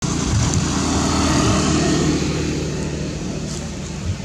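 A motor vehicle's engine rumbling as it passes close by, swelling to a peak about a second and a half in and then slowly fading.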